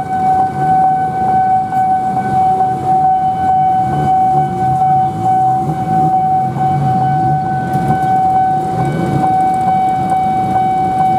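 Level-crossing warning alarm sounding a steady, unbroken electronic tone while the barrier is down, signalling an approaching train, over a low engine rumble.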